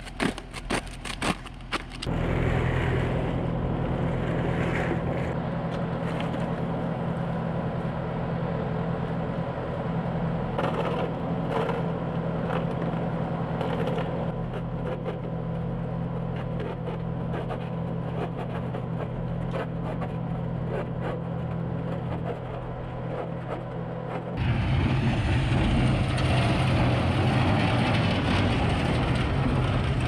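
A few sharp clicks, then a farm machine's engine running steadily, with scattered knocks and scrapes. About 24 seconds in it changes abruptly to a louder, rougher engine sound.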